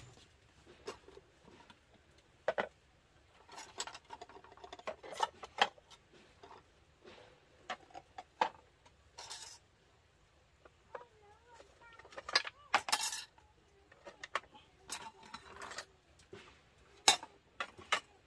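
Irregular clinks and knocks of small hard objects being handled, like dishes or utensils, with a brief wavering cry about two-thirds of the way through.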